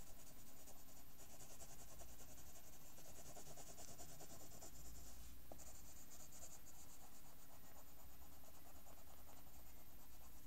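Pencil scratching on paper in quick, repeated shading strokes, with a brief pause about five and a half seconds in.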